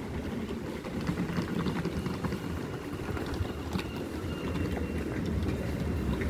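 Steady low rumble of outdoor city background noise, with a few faint clicks.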